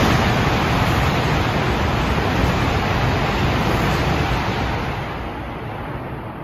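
Tohoku Shinkansen bullet train passing through the station at high speed on the through track: a loud, steady rushing roar of air and wheels that fades over the last two seconds as the tail goes by.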